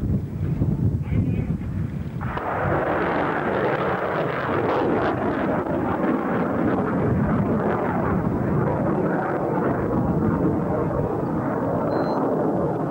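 Lance missile's rocket motor heard in flight after launch: a loud, steady rushing roar that starts suddenly about two seconds in and holds until the end. Before it, wind buffets the microphone.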